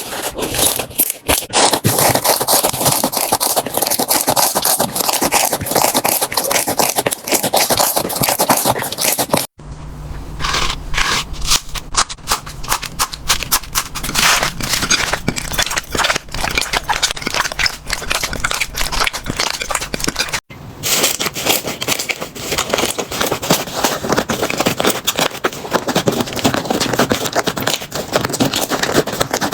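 Slime being worked by hand, a dense run of crackling clicks and pops with scraping, in three stretches that each cut off suddenly, about nine and a half and about twenty seconds in.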